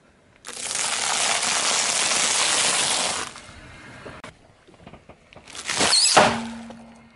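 A car tyre crushing a pile of popcorn on asphalt: a loud, dense crunching that lasts about three seconds. About six seconds in, a foil balloon is squashed under the tyre with a brief squeaky rush.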